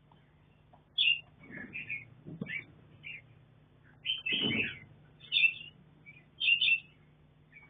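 Red-whiskered bulbuls giving short chirping calls, about eight scattered notes, the longest about halfway through, some with a low rustle beneath them.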